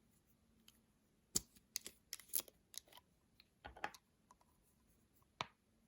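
Small plastic makeup containers being handled and opened: a scattered run of sharp clicks and taps from about a second and a half in, with one last click near the end.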